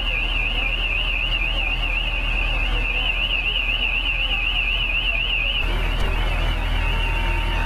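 A loud electronic alarm warbling quickly, about four or five wavers a second, that stops about five and a half seconds in. A low, steady engine rumble runs underneath.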